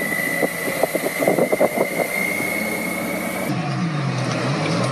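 Road and engine noise with a steady high-pitched whine. After a cut about three and a half seconds in, a car engine runs, its pitch dropping and then climbing again as it revs.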